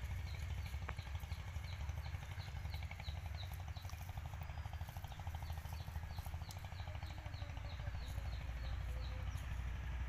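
Outdoor ambience: a steady low rumble like a distant engine, with short high chirping notes repeated about three to four times a second.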